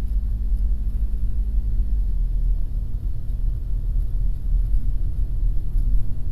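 Daihatsu Taft's engine and road rumble heard from inside the cabin while driving; the engine note drops about two seconds in.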